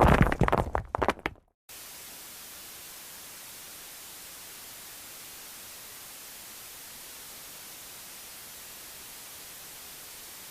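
Loud, irregular noisy crackle that fades and cuts off about one and a half seconds in, then a steady, even static hiss like white noise.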